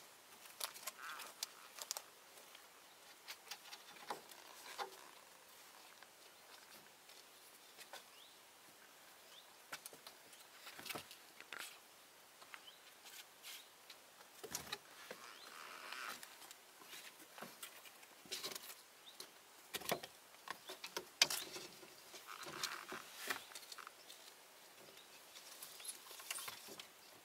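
Kittens' paws pattering and scrabbling on concrete and old wooden boards as they play: faint, irregular light taps and scuffs.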